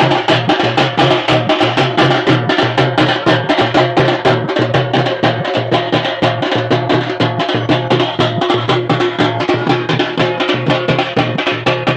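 Live street drum band playing loud, fast, steady beats, a bass drum among the drums, with held pitched notes running under the drumming.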